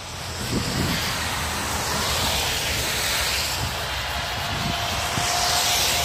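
Motorway traffic on a wet, slushy road: tyre and engine noise of a van passing close by swells and fades, then builds again as a lorry approaches. A faint steady tone is heard under it in the second half.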